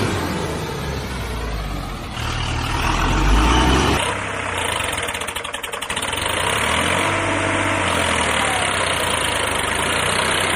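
Dubbed-in sound effect of a heavy diesel engine running and idling, in edited segments that change abruptly about two and four seconds in, with a fast rattling stretch about five seconds in.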